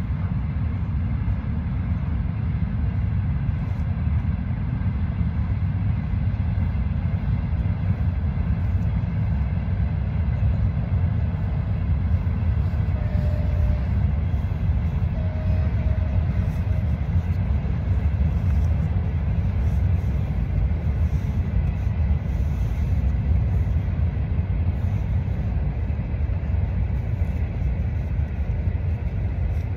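Wind buffeting the microphone: a loud, steady low rumble with no clear pitch.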